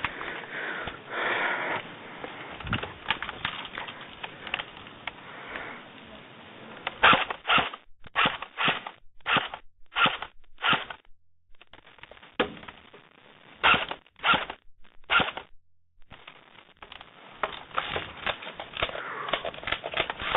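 Airsoft gun firing single shots in quick runs, a sharp pop about every half second, in two strings separated by a short pause.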